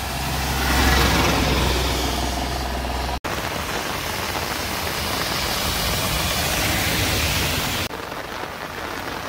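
A motor vehicle's engine running on the road in a steady hiss of heavy rain. The low engine rumble swells about a second in, and the sound breaks off for an instant about three seconds in.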